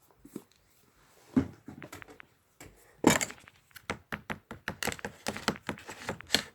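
Slime supplies being handled on a table: a thump, a louder knock about three seconds in, then a quick run of clicks and knocks as containers are moved and capped.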